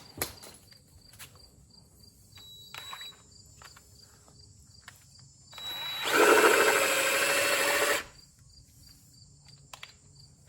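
Cordless drill (DeWalt battery) spinning a drill pump in one run of about two seconds, a steady whine that starts about six seconds in and cuts off suddenly. Before it, a few light clicks and taps from handling the pump and hose fittings.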